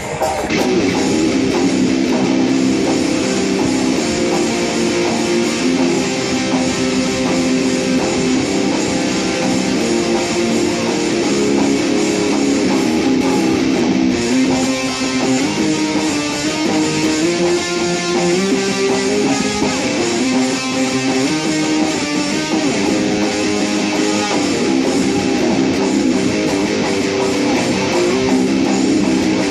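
Dean Dime Floyd ML electric guitar playing a continuous melodic passage, its notes stepping up and down.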